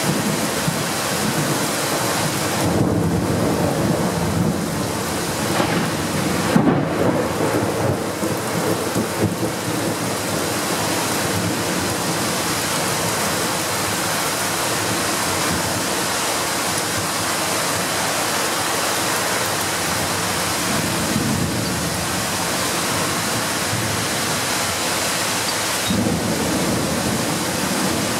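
Heavy rain pouring steadily in a severe thunderstorm, with thunder rumbling through it, loudest about seven seconds in and again briefly near the end.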